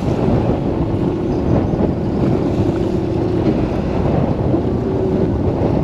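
Strong wind buffeting the microphone on a boat over choppy sea, a steady rushing noise with a faint hum that comes and goes underneath.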